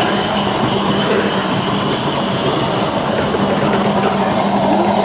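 Gauge 1 live-steam model train running past on the track: a steady hiss over the rumble of wheels on rail, with a steady low hum.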